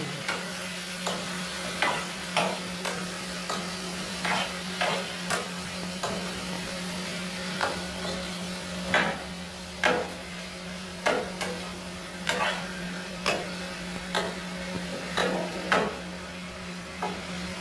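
Metal spoon scraping and clacking against a nonstick frying pan as raw chicken pieces and potato chunks are stirred, with irregular sharp knocks every second or so over a steady sizzle of frying. A steady low hum runs underneath.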